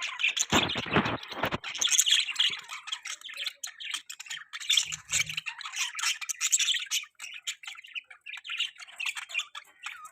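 A flock of budgerigars chattering, with fast overlapping chirps, warbles and squawks. A few dull knocks sound in the first second or so.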